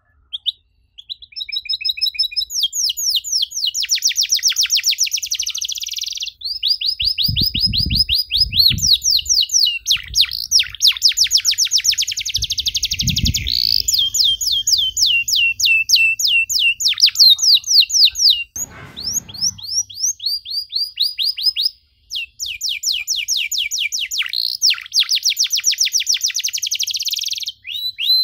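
Domestic canary singing long, fast trilled rolls of rapidly repeated high notes, phrase after phrase with only brief pauses. A few low thumps come a quarter of the way in and near halfway, and a short rustling noise about two-thirds through.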